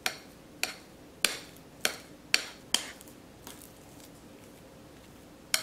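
Metal spoon clinking against a ceramic bowl as hot steamed taro is mashed: six sharp clinks in the first three seconds, then a pause, and one more near the end.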